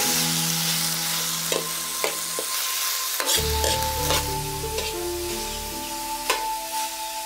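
Sliced beef sizzling in a hot wok as it is stir-fried, with a few sharp knocks and scrapes of a metal ladle against the pan. Background music plays underneath.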